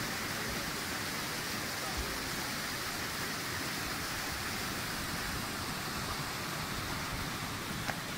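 Overflowing levada water rushing in white foam over rocks and across a flooded path: a steady rush of water.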